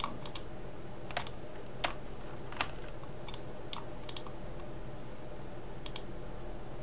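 Computer mouse buttons clicking: about ten scattered, sharp clicks at an irregular pace, with a quick double click near the end. A steady low hum runs underneath.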